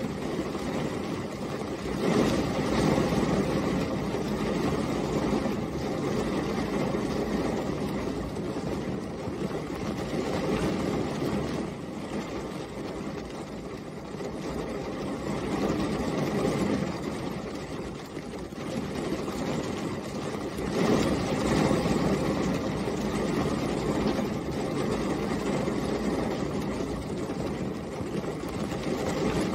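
Steady rain falling, a dense even patter that swells louder a few times and eases back.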